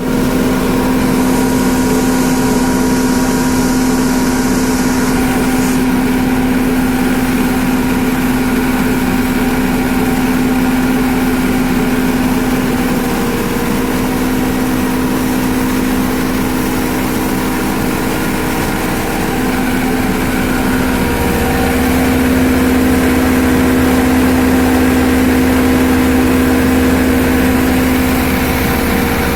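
Coriander grinding mill and vibro sifter running steadily: a loud, even machine hum with steady tones over it.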